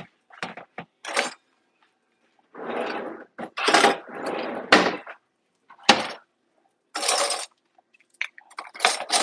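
Metal cutlery and kitchen utensils clattering into a kitchen drawer's utensil tray, in a series of irregular rattles and clinks with short pauses between them.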